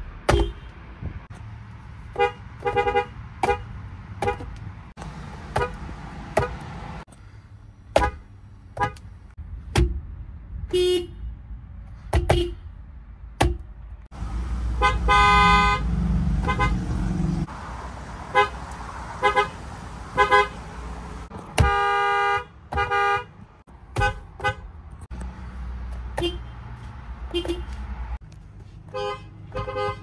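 Toyota car horns honked one car after another, mostly in short quick taps with a couple of longer blasts, about a quarter and two-thirds of the way through.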